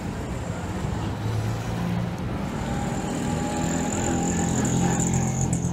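Street traffic: vehicle engines running as an auto-rickshaw passes close by, growing louder over the second half.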